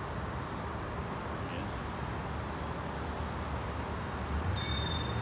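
Steady street traffic noise with a motor vehicle's engine growing louder as it approaches near the end. A brief high-pitched squeal comes just before the engine peaks.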